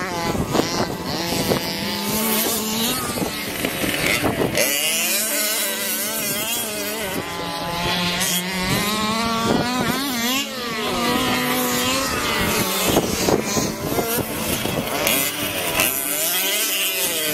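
Small two-stroke engine of a large-scale gas RC car revving up and down repeatedly as it is driven hard.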